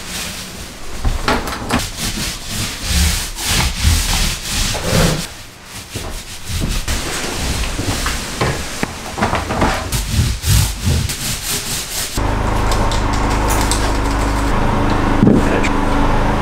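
Paint roller rubbing over drywall in repeated strokes, mixed with knocks and scrapes of interior building work. About twelve seconds in, this gives way abruptly to a steady low hum.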